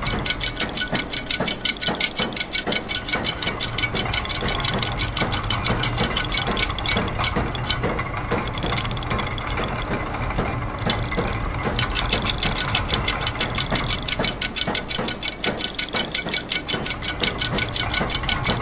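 Layered loops of machine sounds: rapid, evenly spaced ratchet- and gear-like clicking over a steady low mechanical hum, forming an overlapping rhythm. The sharp high clicks drop back for a few seconds around the middle, then return.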